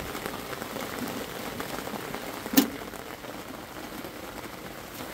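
A single sharp metallic clack about two and a half seconds in as the lid latch of a Magma stainless steel boat grill is worked open, over a steady hiss of rain.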